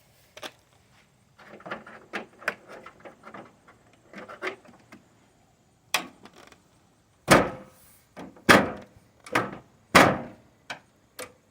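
Replacement hood on a Chevy Express van being handled and brought down: light metal rattles and clicks at first, then about four loud bangs with a short metallic ring from about seven seconds in, as it is slammed down on a latch that isn't holding it shut.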